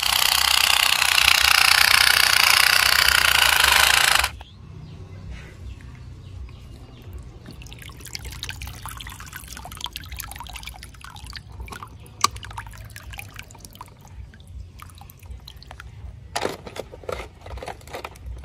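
A loud rushing hiss for the first four seconds that cuts off suddenly. Then small splashes and light plastic clicks and knocks as toy boats and toy vehicles are handled in a shallow muddy puddle.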